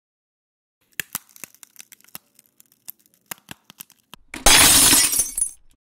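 Glass cracking in a series of sharp ticks and cracks starting about a second in, then shattering loudly for about a second near the end.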